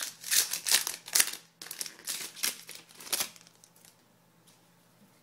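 Shiny foil wrapper of a hockey-card pack crinkling in a run of irregular crackles as it is torn open by hand, stopping a little over three seconds in.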